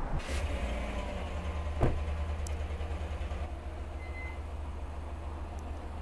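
Street traffic noise: a low, steady rumble of vehicles that slowly fades, with a single sharp click about two seconds in.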